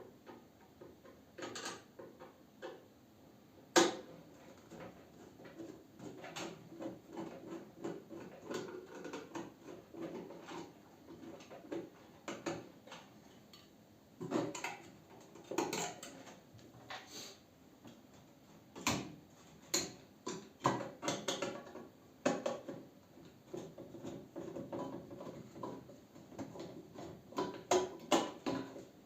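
Panasonic NN-GD577M microwave oven being taken apart by hand: irregular clicks, knocks and scrapes of its metal casing and parts against tools, with a sharp knock about four seconds in.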